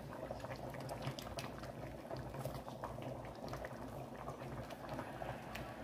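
Ghanaian chicken and fish light soup simmering in pots on the stove: a soft, steady bubbling with many small pops.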